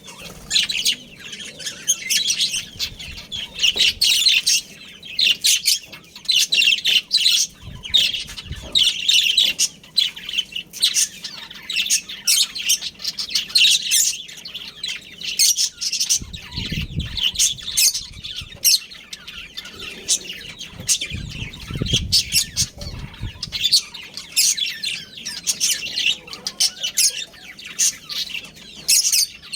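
Budgerigars chattering and chirping continuously in a rapid, high warble. Two stretches of low rumble come in about the middle.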